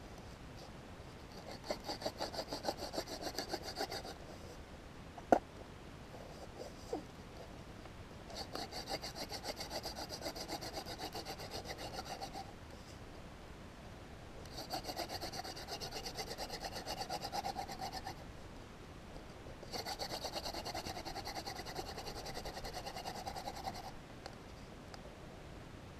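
A hand-drill spindle spun back and forth between the palms, grinding in its socket in the wooden hearth board to build friction heat for an ember. It goes in four bouts of fast, scratchy rubbing, each lasting three to four seconds, with a single sharp click in the pause after the first bout.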